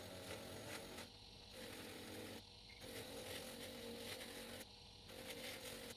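Faint scraping and hiss of metal chuck parts being cleaned, over a low steady hum, breaking off briefly several times.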